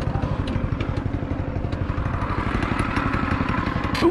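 Yerf-Dog 3203 go-kart's small engine running steadily as the kart drives through snow, with a faint whine rising slightly in the second half and a short knock right at the end.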